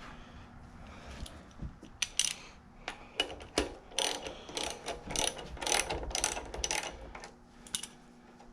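A 1/2-inch thread being chased on a vise's threaded carrier: irregular metal clicking and short scraping strokes, a couple a second, from about two seconds in until shortly before the end. The threads turn fairly easily, with a little jerkiness.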